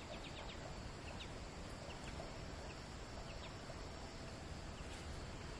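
Quiet outdoor ambience: a steady hiss with scattered short, high bird chirps.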